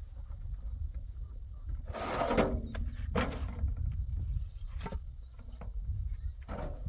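Hollow concrete blocks scraping and clunking as they are lifted from a metal wheelbarrow and set down, four times, the first about two seconds in and the loudest. A steady low wind rumble underneath.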